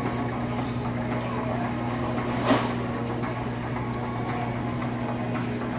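Steady hum and water noise of aquarium filter pumps running, with one brief sharp click about two and a half seconds in.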